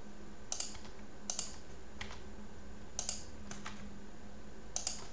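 A handful of separate keystrokes on a computer keyboard, spaced about a second apart, as a code formula is edited. A faint steady hum runs underneath.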